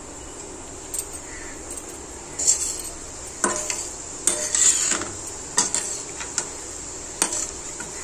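Cashews deep-frying in oil in a stainless steel kadai: a steady sizzle, with a perforated steel slotted spoon stirring them and knocking against the side of the pan about eight times.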